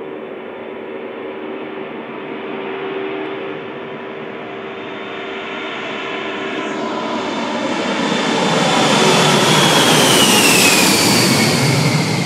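Boeing 747 Shuttle Carrier Aircraft's four jet engines at takeoff power as it climbs out toward and over the listener. The roar builds steadily to its loudest about ten seconds in, then a whine drops in pitch as the plane passes overhead.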